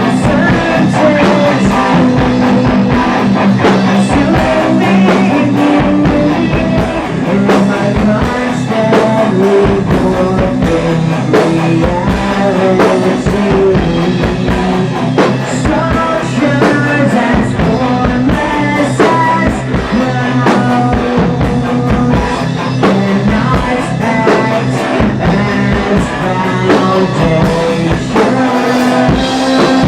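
Heavy metal band playing through a song at full volume: guitar and drum kit together, with sustained chords and steady drumming.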